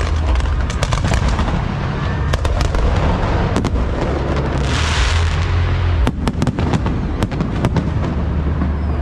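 Aerial fireworks display: a rapid run of sharp bangs and booms over a deep continuous rumble that drops away about six seconds in, with a hissing crackle burst around the middle.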